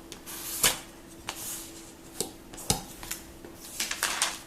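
Handling noise from an iPad, a small plastic tool and a plastic screen protector: a scatter of light taps and clicks, about half a dozen, with some rustling between them.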